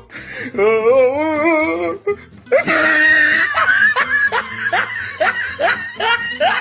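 A string of short comic sound-effect clips: a wavering, wobbling pitched sound for about a second and a half, then, after a brief gap, a noisy burst into laughter with short rising notes about three a second.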